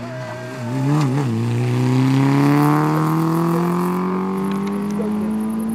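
Rally car engine running hard. About a second in the pitch wavers up and down briefly, then it climbs steadily as the car accelerates through one gear. The sound cuts off abruptly near the end.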